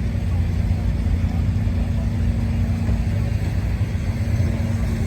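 A car driving at a steady speed: an even engine drone and road rumble, with no change in pitch.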